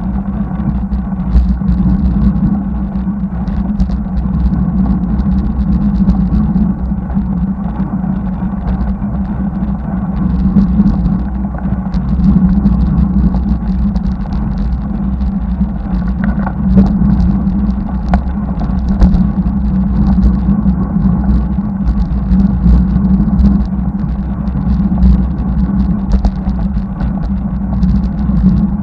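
Steady low rumble of wind on the microphone and tyre noise from a road bicycle being ridden along the highway, picked up by a camera mounted on the bike.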